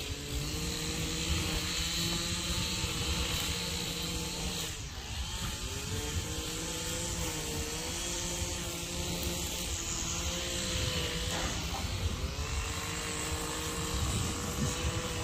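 An engine running steadily, its pitch rising in the first second and then holding with slight wavers, over a low rumble.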